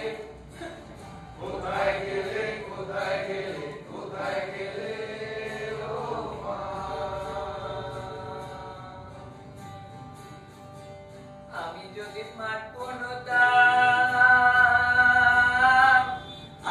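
Music with a voice singing long, sliding phrases; the singing becomes much louder about thirteen seconds in.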